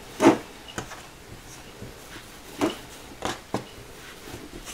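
Oiled hands rolling a sticky dough of bread and tacky glue against a tabletop, with four short knocks on the table: the loudest about a quarter second in, then three close together in the last two seconds.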